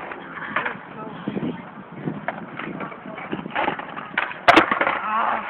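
Indistinct voices, with scattered light clicks and one sharp, loud click about four and a half seconds in.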